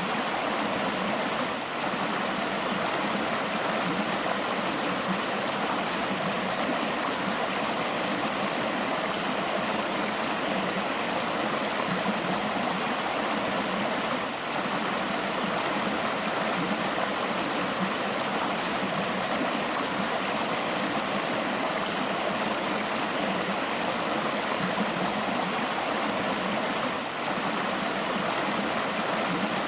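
River water flowing and babbling steadily, an even unbroken rush of water.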